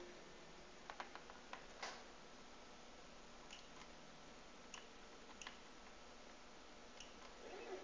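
Near silence: room tone with a few faint, scattered clicks and ticks, several close together about a second in, then single ones every second or so.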